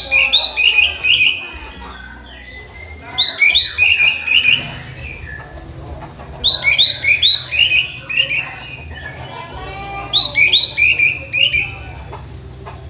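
Orange-headed thrush (anis merah) singing: a rapid phrase of bright whistled notes, repeated four times at about three-second intervals, with faint chirps in the gaps.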